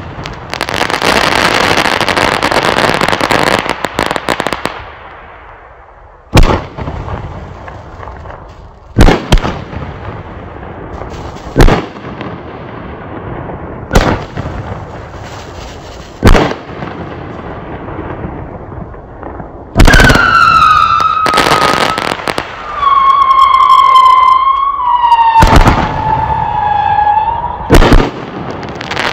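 200-gram fireworks fan cake firing: a dense crackle at first, then single sharp shots every two to three seconds, and near the end whistles that fall a little in pitch, with more bangs among them.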